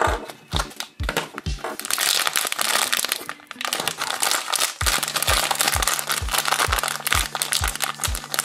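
Plastic wrapper of a Pikmi Pops blind bag crinkling as it is handled and pulled open, in spells about two seconds in and again from halfway on, over background music with a steady beat.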